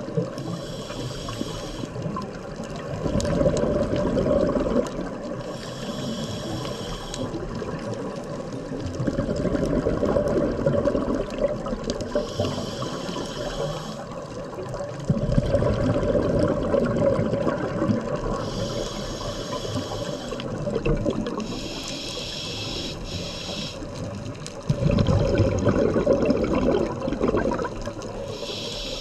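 Scuba diver breathing through a regulator underwater: a hissing inhale through the demand valve every few seconds, each followed by a longer rush of exhaled bubbles.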